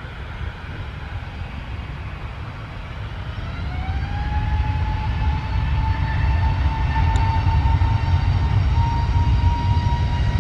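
easyJet airliner's jet engines spooling up to take-off thrust: a whine rises in pitch about three seconds in and settles into a steady high tone over a deep rumble that grows louder.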